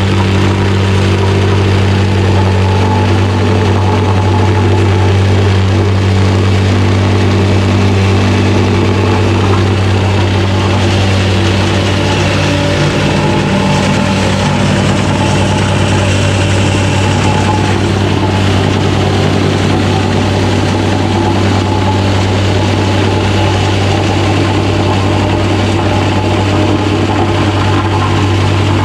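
Gas-engined vibratory plate compactor running steadily as it packs brick pavers, settling polymeric sand down into the joints; its pitch shifts slightly about halfway through.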